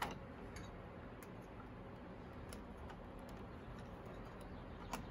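A few small clicks and taps as plastic and metal parts are handled at the motorcycle's wiring terminals, with a sharper click at the start and another near the end, over a low steady hum.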